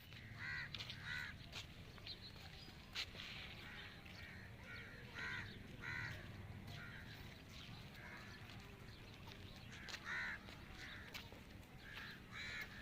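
Birds calling outdoors in short calls, mostly two in quick succession, repeating every few seconds, over a low steady background rumble.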